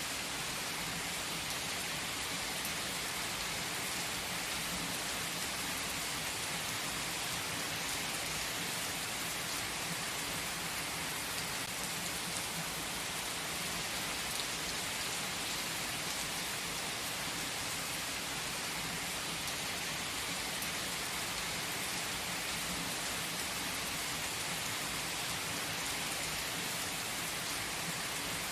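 Steady rain falling, an even hiss of many fine drops with no change in strength.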